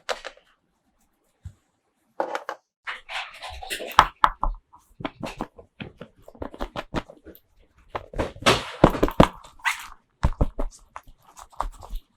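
Toy packaging and small plastic toy pieces being handled: crinkling wrapper and quick clicks and taps in irregular bursts, starting about two seconds in.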